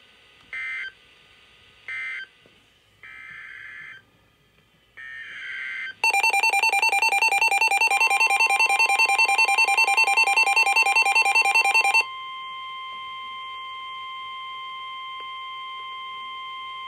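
Emergency Alert System signals between weather radio messages: several short, buzzy SAME digital data bursts, then a loud, rapidly warbling two-tone alert from about six seconds in, overlapped about two seconds later by the steady weather radio warning alarm tone, which holds on after the warble cuts off.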